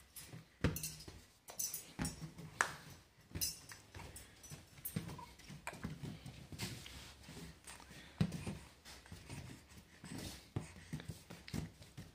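A baby's quick excited breaths and grunts, mixed with irregular bumps and rubs of latex balloons being batted about.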